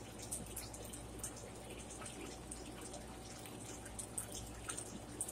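Faint, close-up chewing of a soft mini pita spread with cream cheese: scattered small wet mouth clicks and smacks over a low steady hum.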